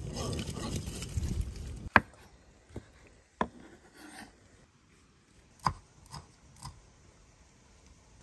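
A kitchen knife chopping vegetables on a wooden cutting board: about seven separate sharp knocks, irregularly spaced, the first and loudest about two seconds in. Before them there is a rustling, scraping noise that fits a pig rooting in wood-chip mulch.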